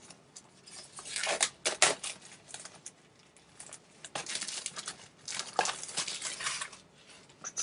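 Thin plastic shrink wrap crinkling and tearing as it is peeled off a Blu-ray case, in several irregular bursts of a second or so, with a few sharp clicks from the case being handled.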